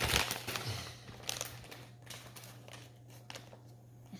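Plastic packaging crinkling as it is handled. It is loudest in the first half second, with another short burst about a second later.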